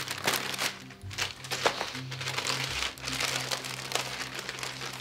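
Plastic packaging crinkling and crackling in short bursts as it is handled and opened, over background music with steady low notes.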